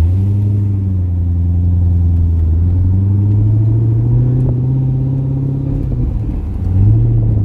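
Cammed C6 Corvette Z06's LS7 V8 pulling at low revs in light town driving, heard from inside the cabin, with the engine just up to operating temperature. The pitch climbs slowly over the first few seconds, drops about six seconds in, then rises again near the end.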